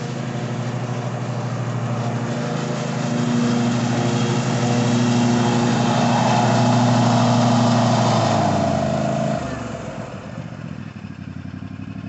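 Ariens Ikon XD zero-turn mower's Kawasaki FR691V V-twin engine running steadily and growing louder as the mower drives closer. About nine seconds in, the engine's pitch falls and it quietens as it is throttled down.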